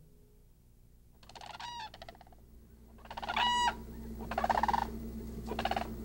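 Cranes calling: a series of loud, rolling, rattling calls, one fainter call about a second in, then three louder ones in quick succession from about three seconds in.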